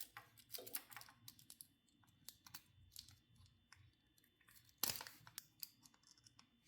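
Faint, irregular clicks and rustles of an electric pallet jack's wiring being handled and a connector disconnected, with one sharper click about five seconds in.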